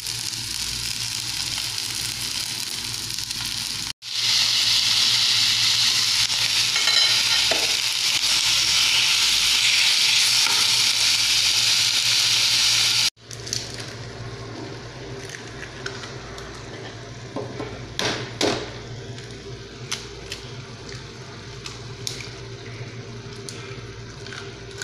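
Garlic and onion sizzling in hot oil in a frying pan, a steady hiss that gets louder partway through. In the later part the pan of tomato and bitter gourd sizzles more quietly, with a few sharp clicks and knocks from a spatula on the pan and an egg being cracked over it.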